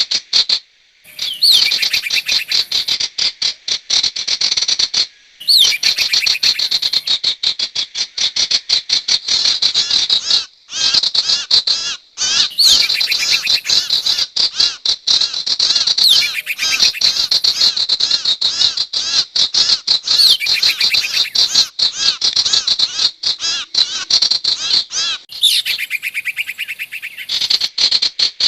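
Recorded sirtu bird calls played as a trapping lure: a dense, rapid stream of high chirps and trills, with a few short breaks.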